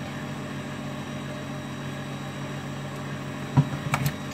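Steady low mechanical hum. About three and a half seconds in, a few sharp wet slaps and knocks come as hands rub and turn a raw plucked chicken in a plastic bowl.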